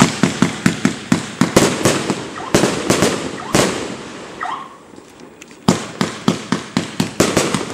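1.2-inch 100-shot fireworks cake firing, a rapid string of sharp reports about four a second. The firing lulls for a moment past the middle, with a short rising whistle, then the reports resume.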